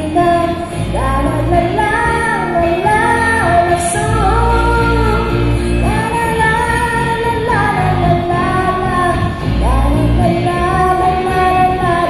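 A live pop band playing a song, with a female lead singer holding long, smooth notes over a steady bass line.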